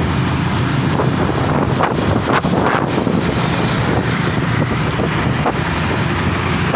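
Wind buffeting the microphone over the steady drone of a motorcycle engine and road noise while riding.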